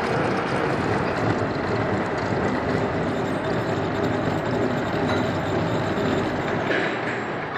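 Horizontal milling machine cutting sprocket teeth into a metal blank with an arbor-mounted milling cutter under flooding coolant: a loud, steady mechanical noise of the cut and the running machine.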